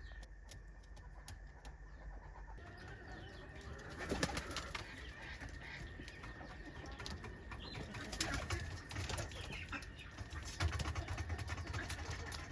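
Farmyard birds calling, with scattered clicks and short chirps over a faint steady high tone; the sounds grow busier in the second half.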